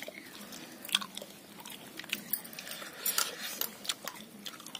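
Eating sounds: fingers picking pieces of dry-roasted chicken off a banana leaf and chewing them, making scattered small clicks and crackles.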